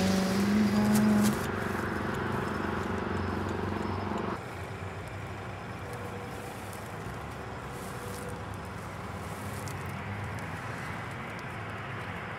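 Steady outdoor background noise, with a pitched tone rising over the first second. The noise drops suddenly to a lower, even level about four seconds in.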